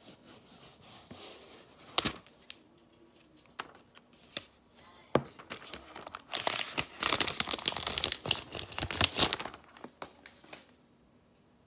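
Protective wrapping being peeled off a new iPad mini. Scattered rustles and clicks lead into a stretch of loud crinkling and tearing from about six to nine and a half seconds in.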